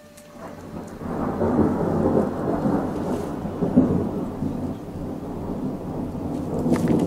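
A long roll of thunder that swells about a second in, rumbles on unevenly, and is cut off abruptly at the end.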